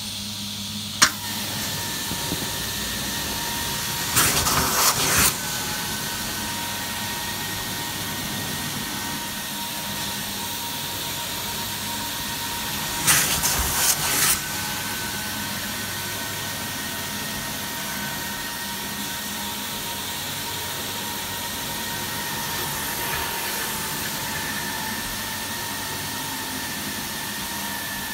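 Carpet-cleaning extraction with a Zipper wand run by a Butler truck-mounted machine: a steady rushing vacuum hiss with a faint whistle as the wand moves over the carpet. There is a sharp click about a second in, and two louder rushing surges of about a second each, around four seconds in and again around thirteen seconds in.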